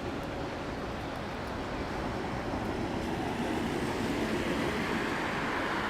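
Jet airliner engines rumbling steadily, slowly growing louder.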